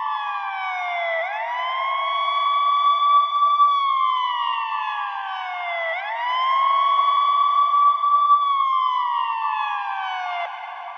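Ambulance siren wailing: a held high tone that slides slowly down, then sweeps quickly back up, repeating about every four and a half seconds. It cuts off shortly before the end.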